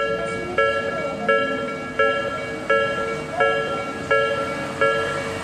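Japanese railway level crossing warning bell ringing, a steady electronic ding-ding that repeats about every 0.7 seconds.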